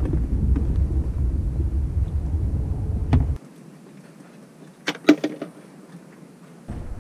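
Low, even rumble of wind on the microphone, which stops abruptly about halfway through. It is followed by a few sharp clicks and taps of a plastic jar held against an outboard motor's housing to catch draining oil.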